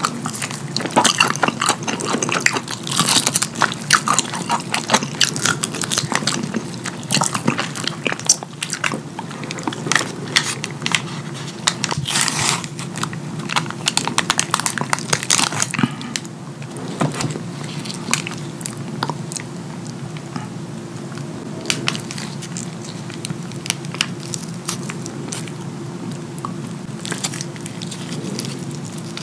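Close-miked eating of saucy fried chicken: biting and chewing with crunchy, crackly mouth sounds. The chewing is dense for the first half and sparser from a little past halfway.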